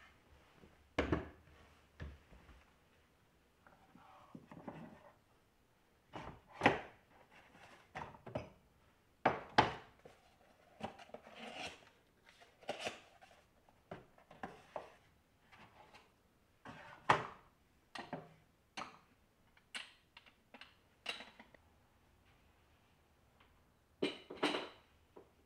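Wooden boards, lids and glass kitchenware being set down and moved about on cabinet shelves: a string of separate knocks, taps and light clatters a second or two apart.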